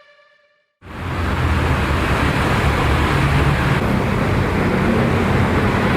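A held musical note fades out. After a short silence a steady noise with a strong low rumble starts abruptly.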